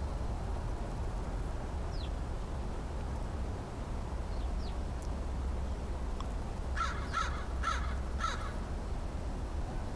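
American crow cawing four times in quick succession, starting about seven seconds in, over a steady low rumble.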